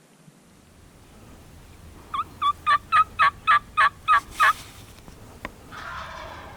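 Turkey yelping: a run of about nine evenly spaced, loud yelps over a couple of seconds, followed near the end by a brief, rougher sound.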